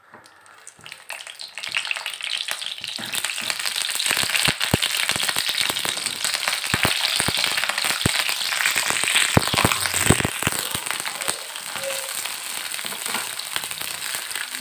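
Slit brinjal (eggplant) pieces frying in hot sesame oil in a pan: a steady sizzle full of sharp crackles, building up over the first couple of seconds as the pieces go in and easing slightly near the end.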